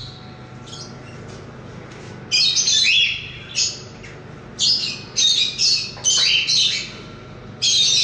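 Small caged parrots giving shrill squawking calls in short bursts. The calls start about two seconds in and recur roughly every second, over a low steady hum.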